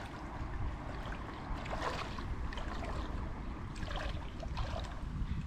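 Water lapping and light splashing, with a steady low rumble underneath.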